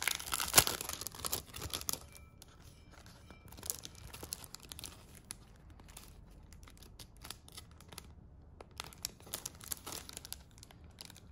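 Plastic packaging and clear cellophane sleeves crinkling as hands open a mailer and pull out sticker sheets. The crinkling is loudest for the first two seconds, then softer, scattered crackles.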